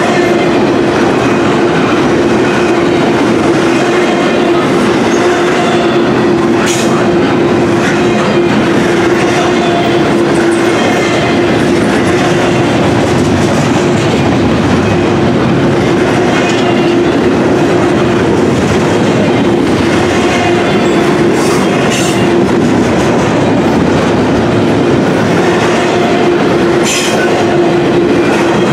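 Steel wheels of double-stack intermodal well cars rolling over the rails as a freight train passes close by: a steady, loud rolling noise with a constant tone running through it and a few sharp clicks.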